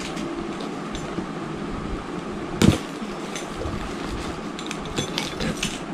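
Cardboard shipping box being opened by hand: packing tape pulled and flaps forced apart. There is one loud rip or thump about two and a half seconds in, then scattered short rustles and clicks, over a steady background hiss.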